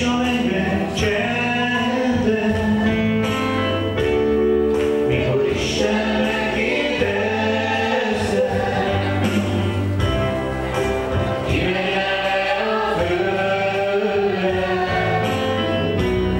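Congregation singing a worship song together, many voices at once, steady and unbroken.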